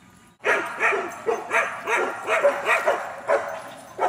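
A dog barking in a rapid run of short barks, about three a second, starting about half a second in.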